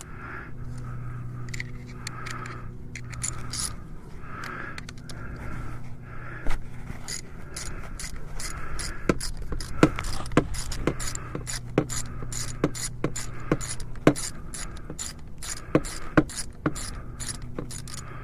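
Hand ratchet wrench clicking in short strokes as a bolt is worked on the motorcycle during an oil change. The clicks come in a quick run through the second half, a few of them sharply louder, over a steady low hum.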